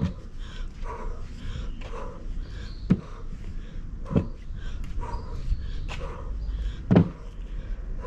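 A few dull thumps on a wet concrete patio during a bent-over floor exercise with small balls, the loudest about three, four and seven seconds in, over faint short calls in the background.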